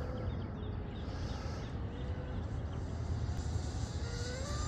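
Distant whine of an RC outrigger boat's Rocket 2968 brushless motor, rising in pitch near the end as the boat speeds up. A steady low rumble sits under it.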